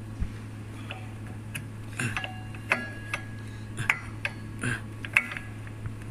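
Irregular light metallic clicks and taps, about a dozen, some with a brief ring, as the metal parts of a split-type mechanical carbon seal are pushed by hand into place on a compressor rotor shaft. A steady low hum runs underneath.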